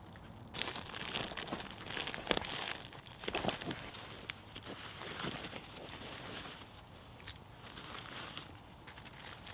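Crinkling and rustling of a synthetic stuff sack being handled, with a few sharp clicks from its plastic buckle and strap being undone.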